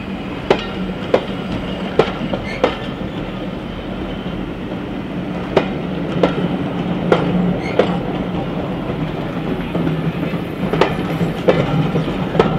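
Railway passenger coaches rolling past close by, their wheels clicking over rail joints in pairs about half a second apart, over a steady rumble.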